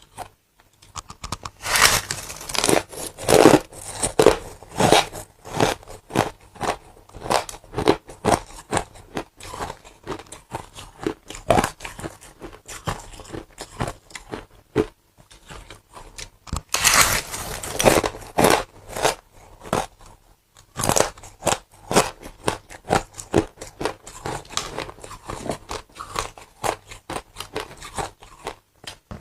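Close, loud crunching as a person bites into and chews pieces of ice and frost, in irregular clusters of sharp crunches with short pauses between.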